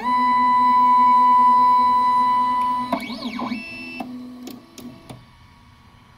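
Ultimaker 3D printer's stepper motors whining at a steady pitch. About three seconds in, the pitch sweeps up and down with a quick move, then changes in short steps with a few clicks as the motion dies away and the sound fades.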